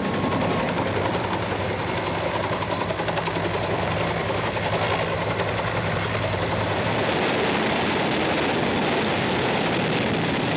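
Military helicopters flying low overhead: a steady, heavy rotor and engine noise. A low droning hum under it drops away about seven seconds in.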